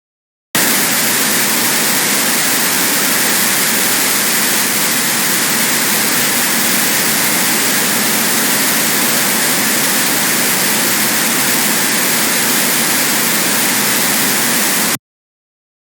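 Harsh noise wall: a loud, dense, unchanging wall of static, hissing most in the highs, that cuts in abruptly about half a second in and stops dead near the end.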